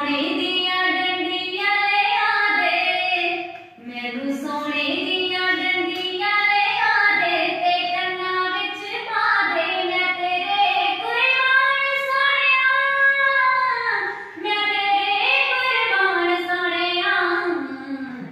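A schoolgirl singing a song solo without accompaniment, in long held, gliding phrases with short breaths about 4 and 14 seconds in.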